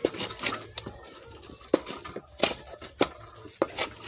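Irregular sharp knocks and scrapes of a cooking utensil against a pot as swallow is stirred and turned, about one to two knocks a second.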